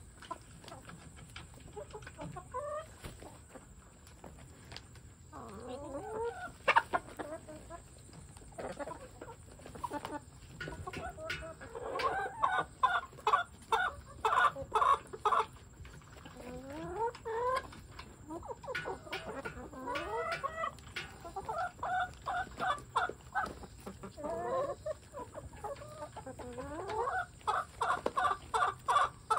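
A flock of hens clucking as they crowd round and peck at a banana, with runs of quick repeated clucks at about three a second and a few rising calls.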